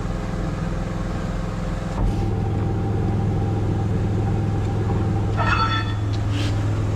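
Steady low mechanical hum from a running machine, stepping up slightly about two seconds in, with a brief high-pitched squeal about five and a half seconds in.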